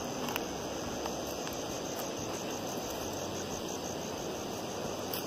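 Crickets chirping in a steady high trill over a low hiss of background noise.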